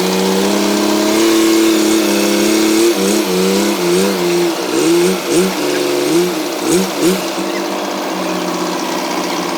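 Heavy earthmoving machine's diesel engine running. Its pitch is steady at first, then wavers up and down several times in the middle before settling again, as the engine load changes.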